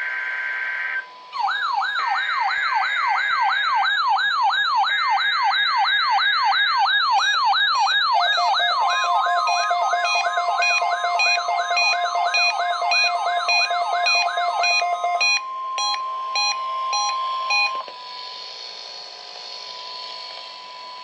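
NOAA Weather Radio Required Weekly Test alert signals: three short buzzy data bursts overlapped by a warbling alarm tone that sweeps up and down about twice a second. About halfway a second steady tone joins, then come a few beeps and a steady tone that stops about 18 seconds in, leaving radio hiss.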